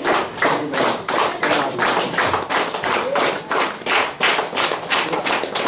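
A group of people clapping together in a steady rhythm, about four claps a second.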